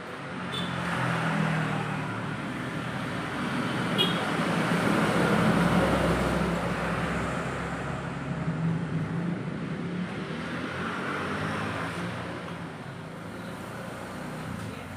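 Motor vehicle engine running, its noise swelling and fading a few times, with a short click about four seconds in.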